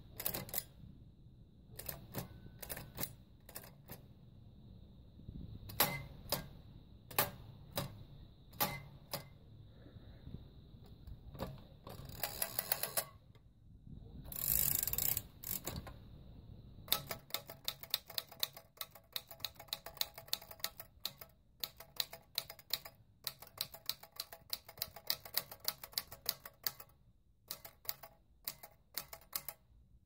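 Royal Standard manual typewriter being typed on: single keystrokes clacking irregularly at first, then a fast, even run of keystrokes at about five a second through the second half. Two longer rasping bursts come around the middle.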